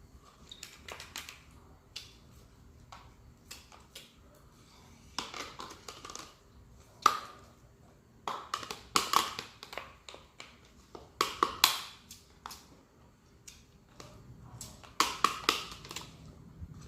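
Glue being put out of its bottle into a bowl: scattered clicks and taps, with several louder short noisy spurts of under a second each.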